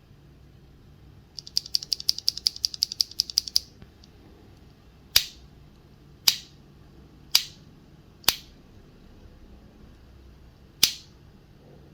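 QK80 mechanical keyboard with Sarokeys BCP switches, GMK keycaps and an aluminium plate being typed on: a quick run of about fourteen keystrokes, then five single, louder key presses spaced about a second apart, the last after a longer pause.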